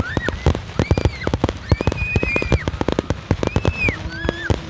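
Fireworks going off: a dense, rapid run of sharp pops and bangs, several every second. Short high-pitched tones rise and fall over it.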